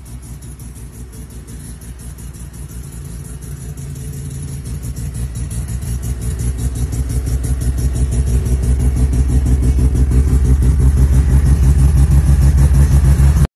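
Rotary engine of a first-generation Mazda RX-7 idling with a fast, even pulsing exhaust note, growing steadily louder toward the end.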